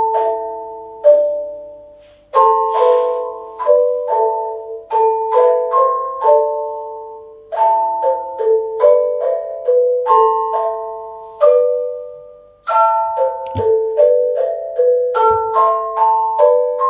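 Hand-cranked punched-paper-strip music box playing a slow tune, its steel-comb notes plucked singly and in chords of two or three, each ringing and fading. The phrasing breathes briefly about two seconds in and again near twelve seconds.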